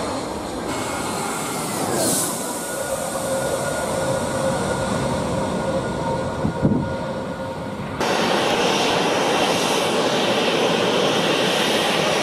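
Jet airliner engines: a steady whine of several tones over a rushing noise, with a brief thump about two-thirds of the way through. About eight seconds in it cuts to a louder, even rushing engine noise from a jet close by on the runway.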